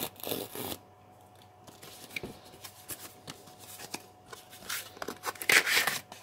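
Cardboard packaging being handled: the inner box sliding out of its outer box, giving short papery scrapes and light taps, with the loudest scrape near the end.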